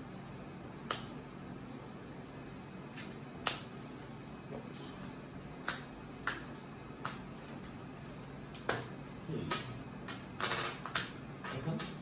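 Sleeved trading cards being handled and set down on a playmat-covered table: about ten sharp, scattered clicks and taps, with a brief rustle of cards sliding near the end, over a faint steady hum.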